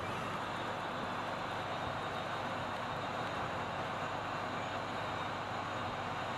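Steady rushing road and wind noise of a vehicle travelling at speed on asphalt, with no distinct engine note.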